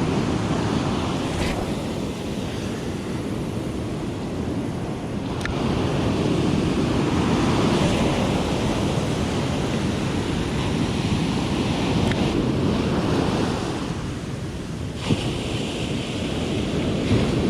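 Ocean surf breaking and washing up the beach, swelling and easing over several seconds, with wind buffeting the microphone. A single brief click near the end.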